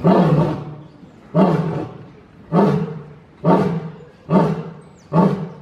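Lion roaring: a run of six deep grunts, each starting sharply and fading away, about one a second and coming a little closer together towards the end. This is the trailing grunt series of a lion's roaring bout.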